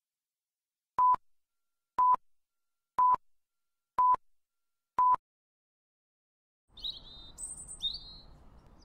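Five short, identical beeps, one a second, counting down a film-leader style countdown. Near the end, birds chirping high over a faint outdoor ambience.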